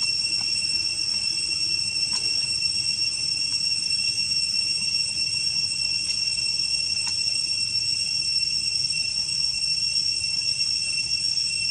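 A steady, high-pitched drone of cicadas, with a few faint clicks.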